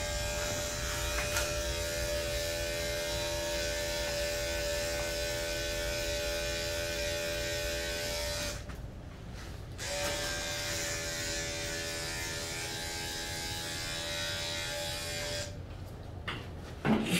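Andis five-speed electric dog clipper running with a steady hum, cutting off for about a second halfway through, then running again and stopping shortly before the end, followed by a few short clicks.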